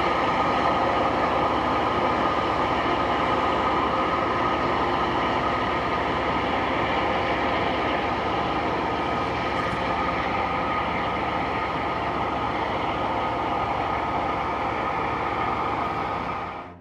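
Loram rail grinder at work: a steady grinding noise from its stones on the rail, mixed with the drone of its engines, fading out near the end.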